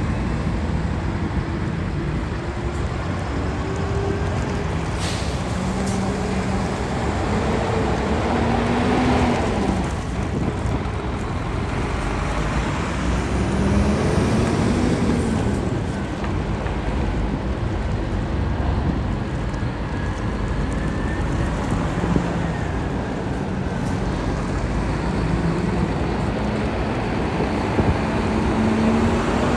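Heavy diesel trucks pulling away one after another, engines revving with the pitch rising and falling several times over a steady low rumble. A brief sharp hiss about five seconds in.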